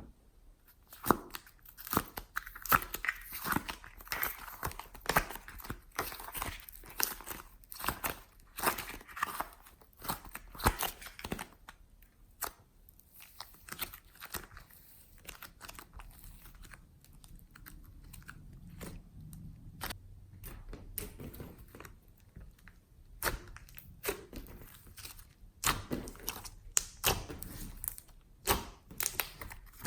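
Glossy slime being squished and mixed with clay, giving irregular sticky clicks and popping air pockets. The pops come thick and fast at first, thin out in the middle, and pick up again near the end.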